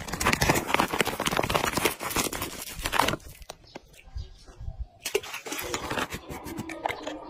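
A plastic bait packet crinkling loudly as it is handled, for about three seconds; then quieter handling noises with scattered sharp clicks from about five seconds in.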